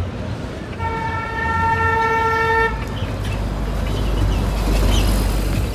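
A vehicle horn sounds one steady note, held for about two seconds, starting about a second in. Then an articulated city bus passes close by, its engine rumble and tyre noise growing loud as it goes.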